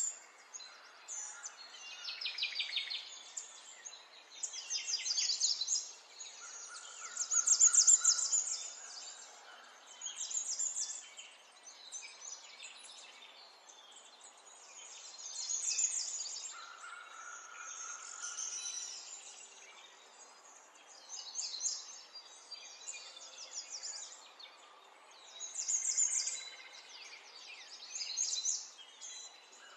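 Birds singing: short, high chirping and trilling phrases that recur every couple of seconds over a faint steady background hiss.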